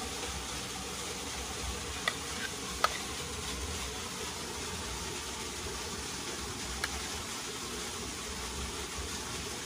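A steady background hiss, most likely insects in the forest. Over it come a few light clicks of a calabash bowl against a pot as pasta is scooped out and served.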